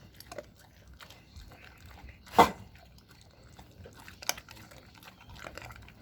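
An American bulldog chewing raw meat and bone, with irregular wet crunches and cracks. There is one much louder sudden sound about two and a half seconds in and a smaller one about four seconds in.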